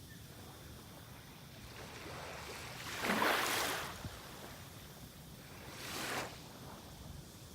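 Ocean waves breaking on a beach. One wave crashes loudly about three seconds in, and a smaller one breaks around six seconds, over a steady wash of surf.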